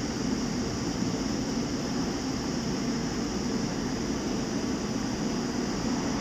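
Steady background hum and hiss that stays at the same level throughout.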